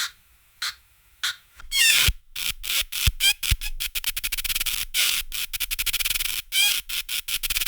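A rubber balloon being rubbed, squeaking. It starts with a few short squeaks, then from about two seconds in turns into fast, rapid rubbing strokes with sharper squeals now and then.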